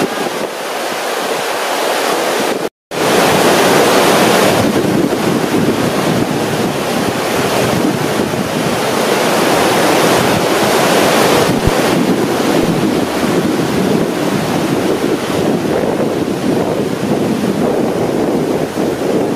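Steady rush of a large whitewater rapid, the river pouring through a standing wave and hole at high flow. The sound cuts out for a moment about three seconds in, then comes back a little louder.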